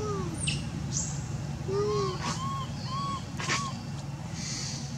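Animal calls: short tonal calls that rise and fall in pitch, repeated about once or twice a second, with a few sharp clicks among them over a steady low background hum.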